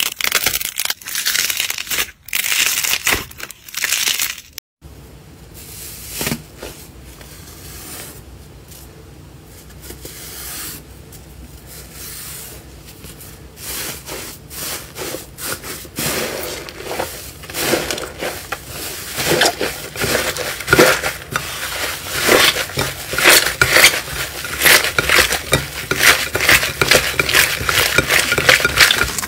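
Hands squeezing and kneading slime, making dense crackling and squishing pops. After a cut about five seconds in, a second slime is worked in a bowl: soft crackles at first, growing louder and more frequent from about sixteen seconds in.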